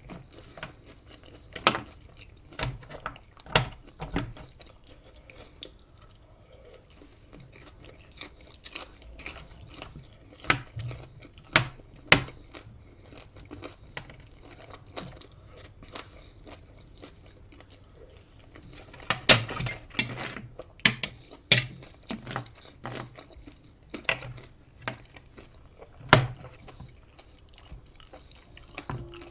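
Close-miked chewing and biting of a cooked English breakfast, with sharp clicks and taps scattered throughout and a loud flurry of them about two-thirds of the way in.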